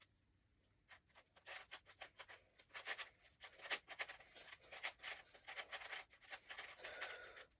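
Faint, scattered small clicks and rubbing sounds of something being handled.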